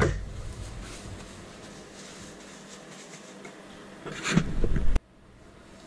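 Quiet room tone with a low rumble at the start that fades away. A short, louder noise comes about four seconds in, then the sound cuts off abruptly to near silence at an edit.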